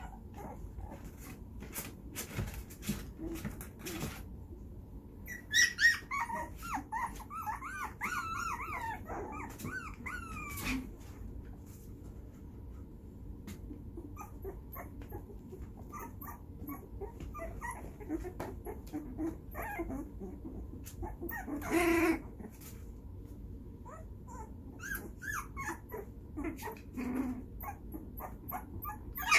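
Very young puppies whimpering and squealing as they play. A long run of high, wavering squeals comes about six seconds in and a short loud yelp past the middle, with small clicks and rustles throughout.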